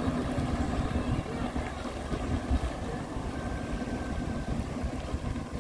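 Small Yamaha jet ski running on the water as it pulls away, a steady engine drone mixed with the rush of water spray, with wind on the microphone.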